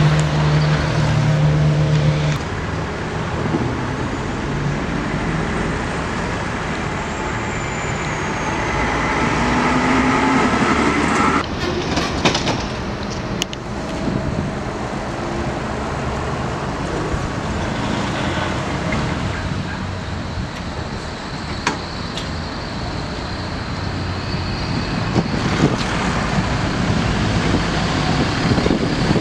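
A tram running along its rails: a steady rumble of wheels and running gear, with a few sharp knocks midway and a thin high whine in the last few seconds.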